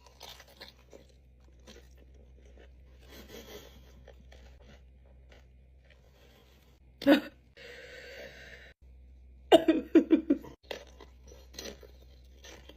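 A person chewing and crunching on a pickle stuffed with Takis chips and candy. Soft, scattered crunches run throughout, with a louder bite about seven seconds in and a burst of loud crunches around ten seconds in.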